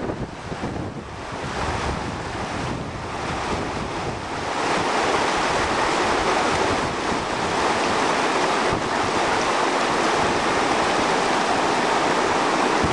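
Fast mountain stream rushing over rocks, with wind buffeting the microphone; the rushing water grows louder about four and a half seconds in and then holds steady.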